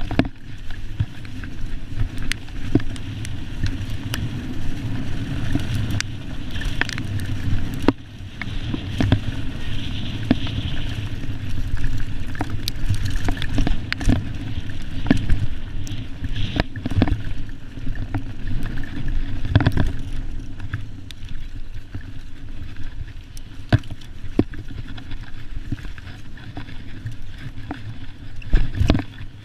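Mountain bike descending fast on a dirt trail: tyres rumbling over the ground, with frequent knocks and rattles of the bike over bumps.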